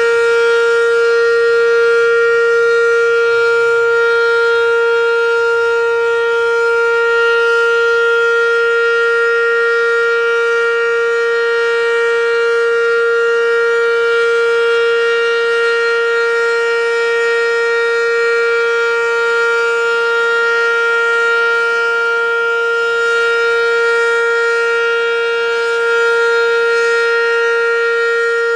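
American Signal OM-117 omnidirectional outdoor warning siren sounding the steady full-alert signal. It is held at full pitch as one loud, unwavering tone rich in overtones, with no rise or fall.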